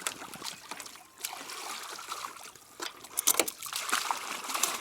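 Water splashing and trickling around a swimmer in the water beside a small sailboat's hull, with louder splashes about three seconds in and again near the end.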